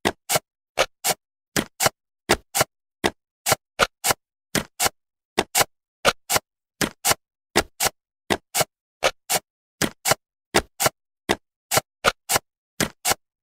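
Sharp clicks, mostly in pairs, about three a second: the sound effect of cartoon jigsaw-puzzle pieces snapping into place.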